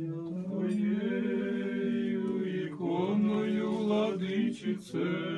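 Orthodox liturgical chant to the Theotokos: a sung line of long, drawn-out notes that step up and down in pitch, with short breaks about three and five seconds in.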